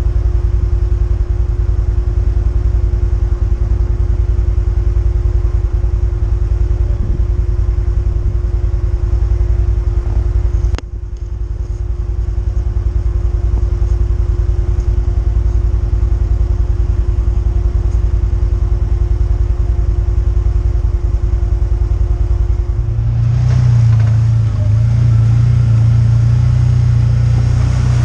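Side-by-side UTV engine running as it is driven, a steady low drone. A single sharp click comes about eleven seconds in, and the engine grows louder about five seconds before the end.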